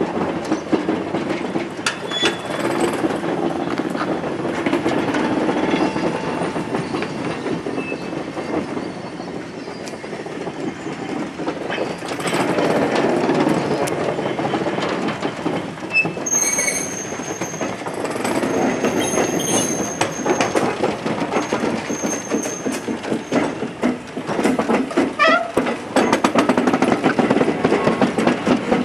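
A slow shunting train of a louvre van and diesel shunting locomotives rolling past, with a dense run of wheel clicks and knocks over the rail joints. High-pitched wheel squeals come in partway through, and one short rising squeal follows near the end.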